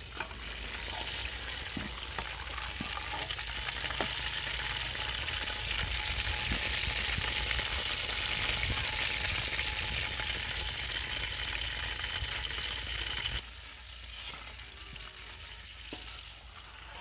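Chicken leg pieces deep-frying in hot oil, a steady sizzle that builds over the first seconds and drops off sharply about thirteen seconds in.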